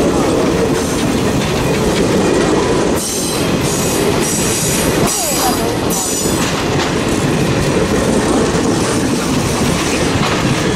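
Passenger cars of a steam-hauled excursion train rolling past at close range, a loud steady rumble of wheels on rail. Several high-pitched wheel squeals come and go about three to six seconds in.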